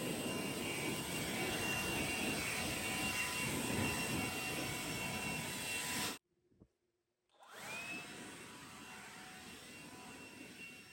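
Leaf blower running steadily with a high whine over a rushing air noise. It cuts off abruptly about six seconds in, then starts again a second and a half later with a rising whine and runs on more quietly.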